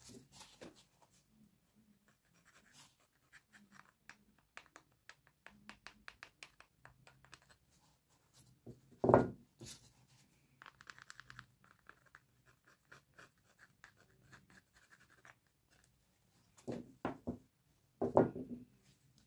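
Metal plier halves being handled and set down on a workbench: a run of small clicks and scrapes, a sharp knock about nine seconds in, and a few more knocks near the end.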